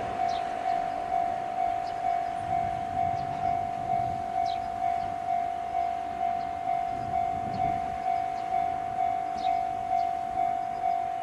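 Japanese railway level-crossing alarm ringing its electronic bell in the JR Tohoku-type tone, one pitch struck about twice a second without a break. A low rumble swells underneath twice, about three and seven seconds in.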